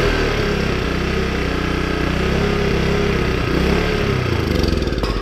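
Small single-cylinder engine of a Yardworks 1000-watt portable generator running steadily while starting fluid is sprayed into its carburetor. It keeps going only on the starting fluid, a sign that its fuel system is clogged and needs cleaning.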